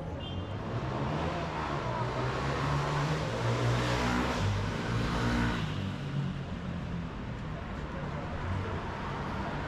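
A car passing close by on a city street: engine and tyre noise swell to a peak about four to five seconds in, then fade as it moves off.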